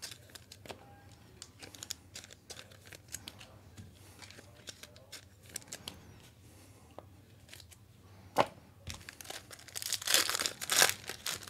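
A foil trading-card pack being handled and torn open: soft rustles and clicks of cards being shuffled, one sharp click, then a louder crinkling tear about ten seconds in.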